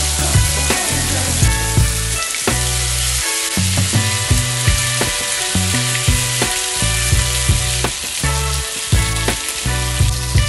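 Marinated chicken drumsticks sizzling in hot oil on a flat pan as they are laid in piece by piece, over background music with a bass line.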